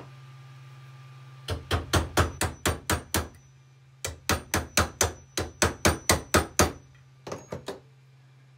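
Hammer tapping a 9mm socket to drive a bearing into a 3D-printed plastic pedal body clamped in a bench vise. It comes in two quick runs of sharp taps, about five a second, then a few lighter taps near the end.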